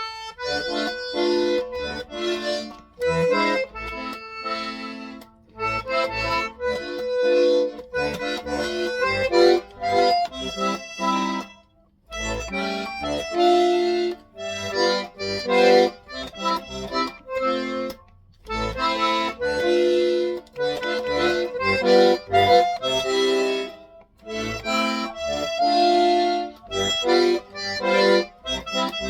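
Accordion playing a melody over low bass notes, in phrases with short breaks about twelve and eighteen seconds in. It is played by someone learning the piece.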